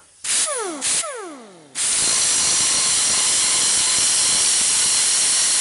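Angle grinder with an abrasive cut-off wheel: two short bursts, each followed by the motor winding down with a falling pitch, then from about two seconds in a steady loud cut through steel.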